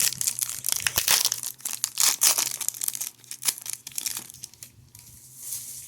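Plastic wrapper of a hockey card pack being torn open and crinkled by hand, a dense crackling that thins out after about four seconds with one last crinkle near the end.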